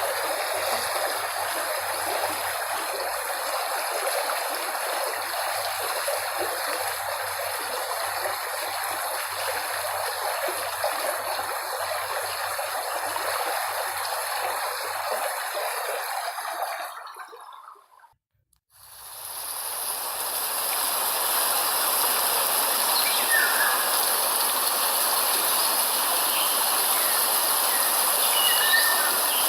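Flowing stream water rushing and trickling steadily, fading out about two-thirds of the way in. After a moment of silence, a different steady rushing noise fades in, with a few faint chirps.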